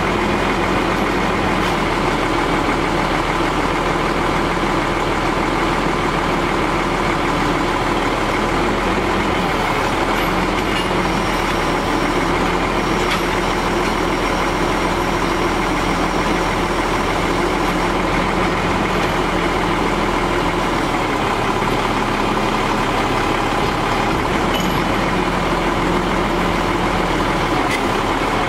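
Caterpillar 3306 10.5 L inline-six turbo diesel of a Ford LT9513 crane truck, running steadily at an even speed.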